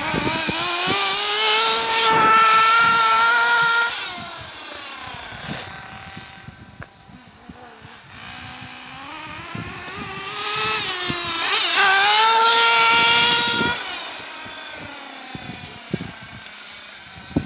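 Kyosho MP9 TKI3 1/8-scale buggy's small two-stroke nitro glow engine running at high revs. It is loud for the first four seconds, fades, then comes back loud from about ten to fourteen seconds, its pitch rising and falling as it is throttled and passes by.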